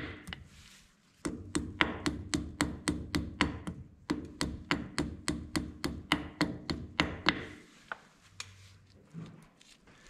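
Hammer tapping a steel cotter pin through the castle nut and hole of a tractor's front spindle: a steady run of light metallic taps, about four a second, which starts after a short pause about a second in and stops a couple of seconds before the end, as the pin is driven through the spindle.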